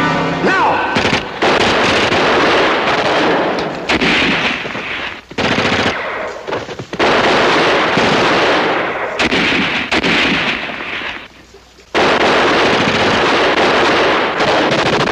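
Sustained bursts of machine-gun fire mixed with gunshots, loud and dense, easing briefly about five and six and a half seconds in and dropping away for about a second near eleven seconds before resuming.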